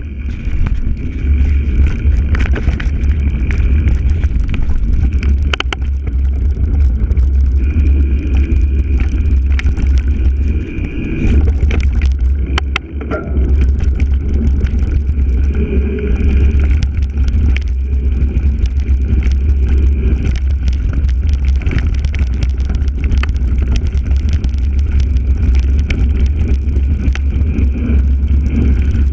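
Mountain bike riding fast over a loose dirt and gravel trail, heard from a camera on its handlebar: a steady heavy rumble of wind and tyres, with frequent small knocks and rattles from the bike jolting over stones.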